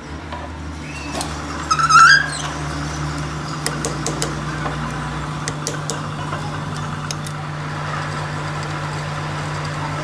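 Metal lathe running with a steady hum, with a short high squeak about two seconds in and a few light metal clicks.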